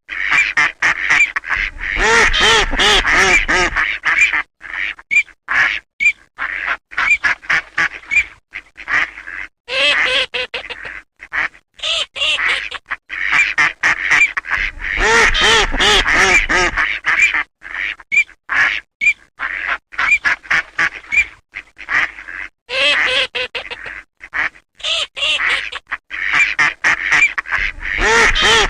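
A flock of Eurasian teal calling: many short calls in quick succession, overlapping into dense choruses several times.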